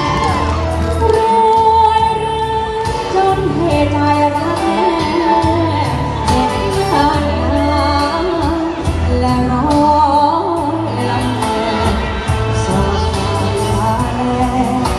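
Thai luk thung song sung live into a microphone through a PA, the voice carrying the melody over backing music with a steady, pulsing bass beat.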